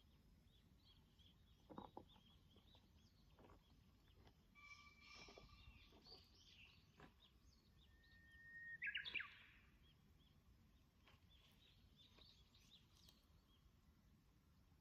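Faint wild birdsong: a run of short, high chirps, then several whistled calls. The loudest, about nine seconds in, is a held note that breaks into a quick flourish.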